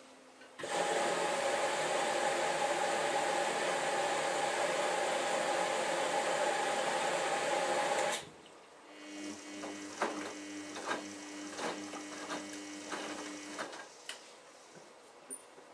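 Samsung Ecobubble WF1804WPU washing machine during its prewash. First a loud, steady rush of water comes in through the inlet, starting and stopping abruptly. Then the drum motor hums as the drum turns, with a run of clicks and knocks from the laundry tumbling.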